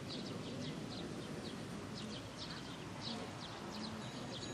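Small birds chirping, many short high notes repeated several times a second, over a low steady background murmur.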